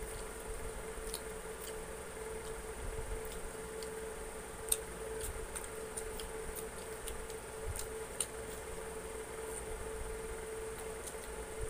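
Two people eating fried chicken wings and rice with their hands: scattered soft mouth clicks and smacks of chewing and picking meat off the bone, with two sharper clicks about five and eight seconds in, over a steady hum.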